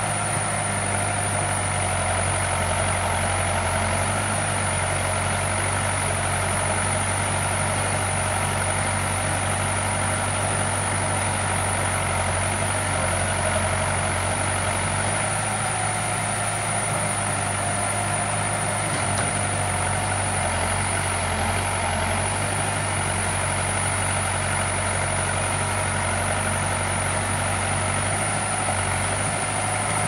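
Diesel engine of an Escorts backhoe loader running steadily at a constant pitch while its backhoe arm loads soil.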